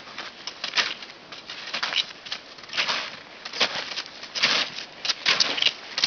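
Snowshoes crunching through fresh snow in a run of uneven steps, about two a second.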